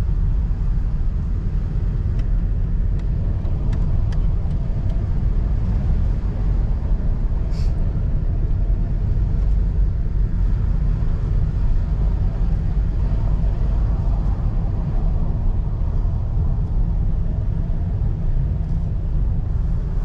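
Car driving at low speed: a steady low rumble of engine and road noise heard from inside the cabin.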